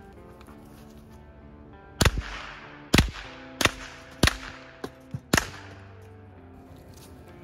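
Savage 64F semi-automatic .22 LR rifle firing five shots in quick succession, less than a second apart, starting about two seconds in, over background music.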